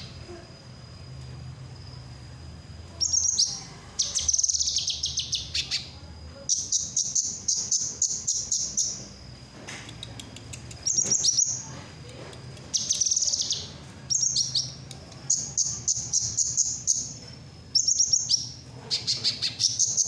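A songbird singing in repeated bursts of rapid, high chattering notes, each burst a second or two long with short pauses between.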